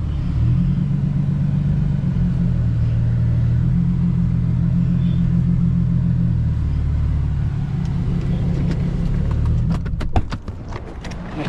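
Car engine running with a steady low drone while the car is driven. About ten seconds in the drone quietens and a quick run of sharp clicks follows.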